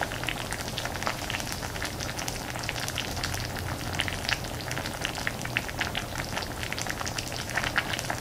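Bean sprout rice soup bubbling and sizzling in a hot earthenware ttukbaegi: a dense, rapid crackle of small pops over a steady hiss.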